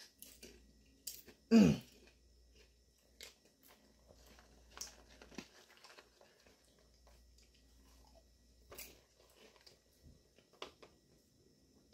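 A person chewing crunchy popcorn, with scattered small crunches and mouth clicks. About a second and a half in, a short grunt that falls in pitch is the loudest sound, and a fainter one follows a few seconds later.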